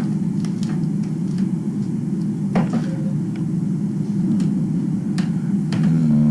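Steady low rumble with a few faint scattered clicks; a low pitched hum joins near the end.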